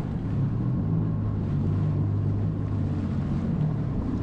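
Personal watercraft (jet ski) engine running steadily at low speed, a low even hum, with wind noise on the microphone and sea water.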